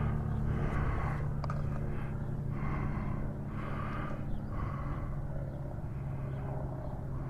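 Motor oil glugging as it is poured from a bottle into the motorcycle engine's filler during an oil change, about one glug a second, over a steady low hum.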